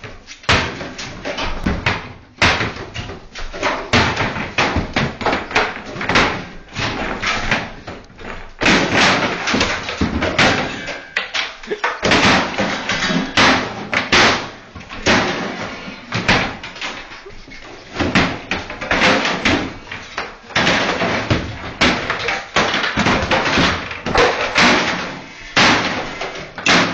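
Repeated loud bangs and crashes of wood as a wall-mounted kitchen cabinet is struck and torn from the wall, with blows coming in quick runs, several a second at times.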